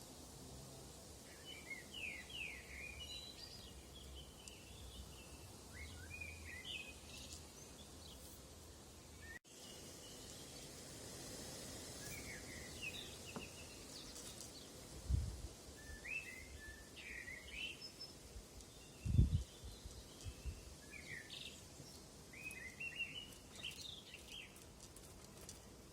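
Songbirds chirping and calling in short, repeated phrases over a steady outdoor background. Two low thumps about 15 and 19 seconds in, the second the loudest sound. There is a brief dropout about 9 seconds in.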